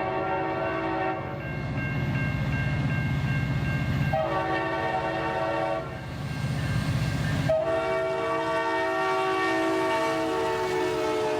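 Real locomotive multi-chime air horn sounding a chord in three blasts over the low rumble of the train. The first blast cuts off about a second in, the second runs from about four to six seconds, and the third, long blast starts about seven and a half seconds in and drops slightly in pitch near the end as the train passes.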